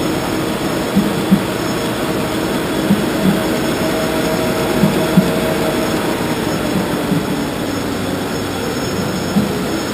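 Edelmann Star-Print 760 web-offset printing press running: a steady, loud mechanical hum and rumble, with a quick pair of knocks repeating about every two seconds.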